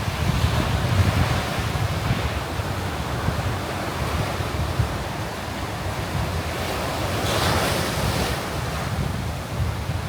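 Sea surf breaking and washing on a sandy beach, with wind buffeting the microphone in a steady low rumble. The hiss of the surf swells about seven seconds in.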